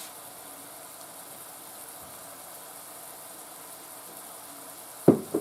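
Steady sizzling of ground beef and onions frying in a skillet, with a brief louder sound near the end.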